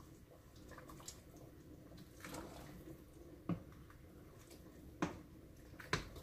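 Faint kitchen handling sounds while soup is being made: a few light knocks or clicks, three of them in the second half, with some soft liquid sounds, over a low steady hum.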